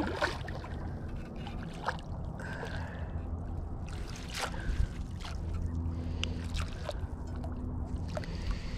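Choppy lake water sloshing and lapping right at the camera, with several sharp splashes from a hooked carp thrashing at the surface close by.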